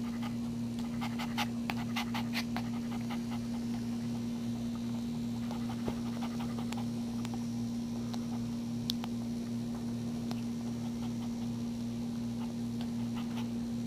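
Mother dog panting beside her newborn puppy, with soft clicks from the nursing pup that are thickest in the first few seconds. A steady low hum runs underneath and is the loudest sound.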